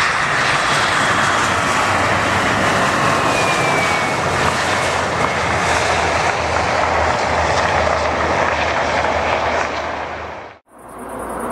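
KLM Embraer 175's two turbofan jet engines running loud through touchdown and the landing rollout, a steady rushing noise with a faint falling whine about four seconds in. The sound fades out about ten seconds in.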